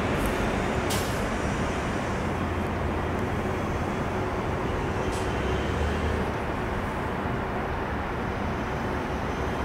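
Steady, distant jet-engine roar of a twin-engine airliner touching down and rolling out on the runway, blended with a low background rumble of airport and road traffic; it eases off slightly in the second half.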